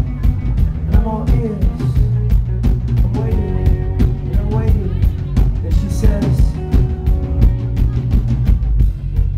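Live rock band playing: a drum kit keeps a steady beat under electric guitars and bass, with a male voice singing at the microphone.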